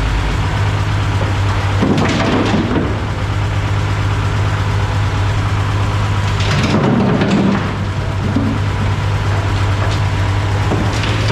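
Construction machine engine running steadily with a constant low hum, with two louder noisy bursts, about two seconds in and again near seven seconds, while backfill stone is laid for the lift's concrete base.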